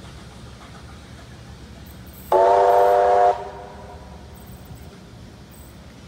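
Steam locomotive 3801's whistle, one blast of about a second, a chord of several steady tones. It starts suddenly about two seconds in and cuts off, leaving a short fading tail.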